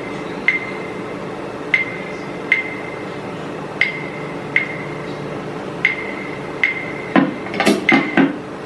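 Sharp, ringing percussive clicks in a steady long-short rhythm, about one pair every 1.3 seconds, over a steady hum. Near the end comes a quick flurry of louder clicks. This is typical of a sparse percussion intro on the CD being played.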